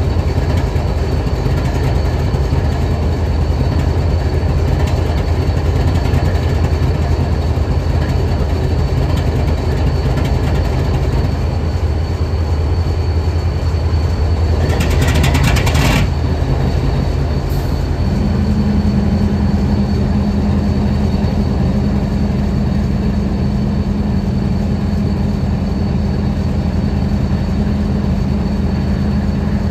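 Diesel-electric freight locomotive idling with a steady low rumble. About halfway through there is a short hiss, and a couple of seconds later a steady hum comes in and holds.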